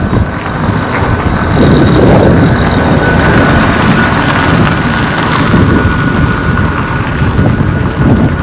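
Wind buffeting the microphone in heavy, uneven gusts, with a thin steady high whine joining about a second and a half in and holding until near the end.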